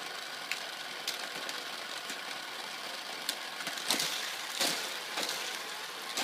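Plastic toy cars and racetrack pieces being handled, with scattered light clicks and knocks, a few louder ones about four to five seconds in, over a steady hiss.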